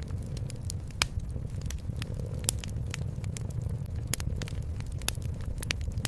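Wood fire crackling in a fireplace: irregular sharp pops and snaps, a loud one about a second in and another about two and a half seconds in, over a steady low rumble.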